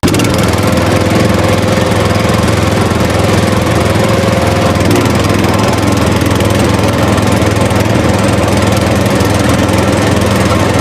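A motor running steadily without let-up, starting and cutting off abruptly.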